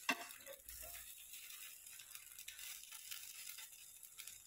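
Faint sizzling of bread slices toasting in a buttered non-stick pan, with one sharp click of the metal spatula against the pan right at the start and a few soft ticks after.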